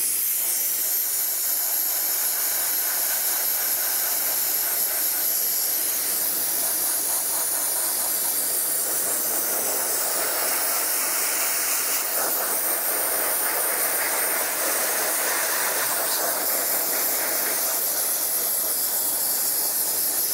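Dry ice blaster's precision gun blasting continuously: a steady hiss of compressed air and dry ice pellets as it strips adhesive off an alloy wheel rim.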